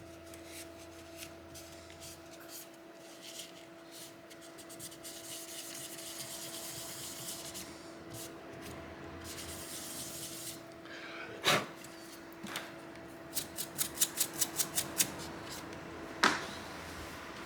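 Old thermal paste being scrubbed and wiped off a graphics card's cooler: hissy rubbing strokes, then a quick run of light ticks, with two sharp knocks a few seconds apart near the end. A faint steady hum sits underneath.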